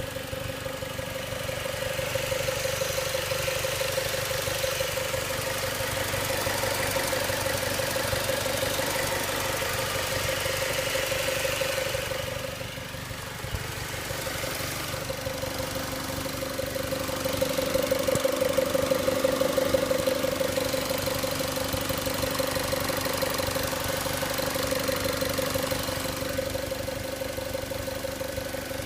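2006 Mazda MX-5 Miata (NC) four-cylinder engine idling steadily with a fast, even clicking; the owner is unsure whether the clicking is normal. It dips briefly about twelve seconds in and runs a little louder a few seconds later.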